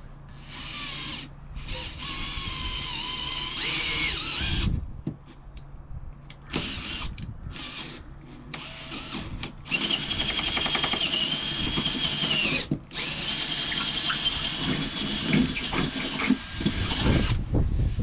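Handheld power drill boring holes down through the wood-covered van floor. The motor whine comes in several runs of a few seconds each with short pauses between, and its pitch wavers as the bit bites.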